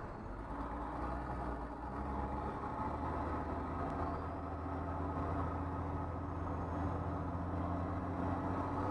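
School bus engine running at low speed, heard from inside the bus as it rolls slowly; a steady hum whose pitch steps up slightly a couple of seconds in.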